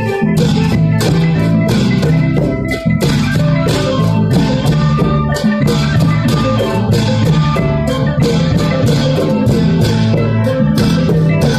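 Thai dance music: plucked strings and mallet percussion over a steady, quick drum beat.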